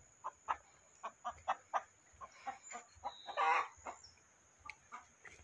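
Chickens clucking: short, irregular clucks, with one louder, longer call about three and a half seconds in.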